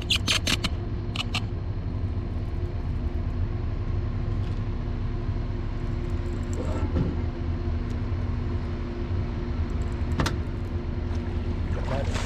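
A motor's steady low hum with several fixed pitches, with a few sharp clicks in the first second or two. Near the end, water splashing as a small hooked catfish thrashes at the surface.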